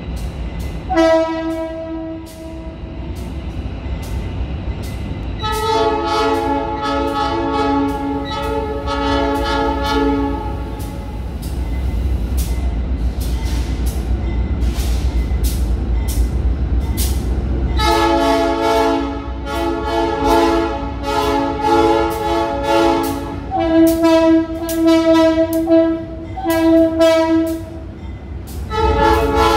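Train air horns sounding over and over, chords of several notes: a short blast, two long held blasts of several seconds, then a run of short blasts near the end. Underneath is the low steady rumble of a diesel locomotive's engine.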